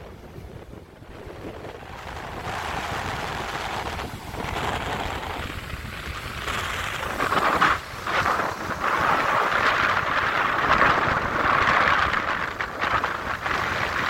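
Sea waves breaking and washing over a rocky shore, rough and surging, with wind buffeting the microphone. The surf is quieter at first, builds after a couple of seconds, and comes in heavier surges from about halfway through.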